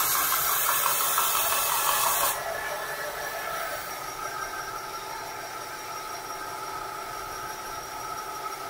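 Belt sander running, with a small wooden workpiece pressed to the sanding belt for the first two seconds or so: a loud hiss that cuts off abruptly when the wood is lifted away. The sander then runs on unloaded, a steady, quieter motor and belt noise.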